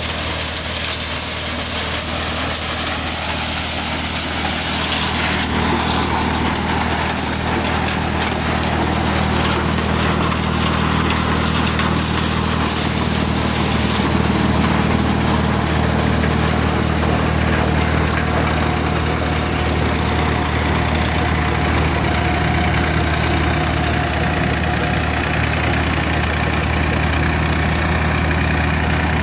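Maize thresher running, driven by a Massey Ferguson tractor's diesel engine at a steady speed.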